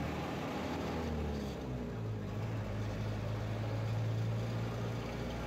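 Engine and tyre noise of a vehicle driving along a city road, heard from on board. The engine note falls over the first two seconds, then settles into a steady hum.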